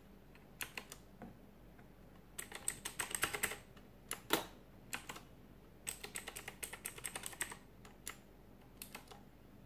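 Keys of an Aula KB890 (F890) mechanical keyboard with Blue switches clicking as they are pressed: a few single clicks, then quick runs of presses about two and a half seconds in and again from about six to seven and a half seconds.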